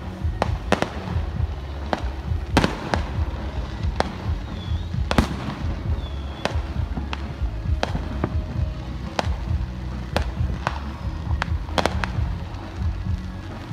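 Aerial fireworks going off: about two dozen sharp, irregularly spaced bangs and cracks, the loudest about five seconds in.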